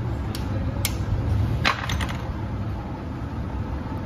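Sharp metallic clinks of a spanner on the nut and cam gears in the opened timing case of an old Royal Enfield Bullet engine, a few taps in the first two seconds, the loudest just under two seconds in, over a steady low hum.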